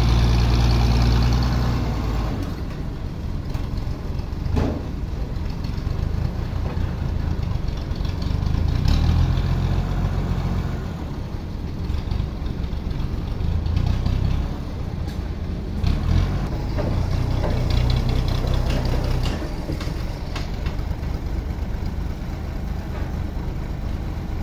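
Toyota forklift engine running under load, its speed rising and falling in swells as it lifts and moves a heavy timber slab, with a couple of sharp knocks.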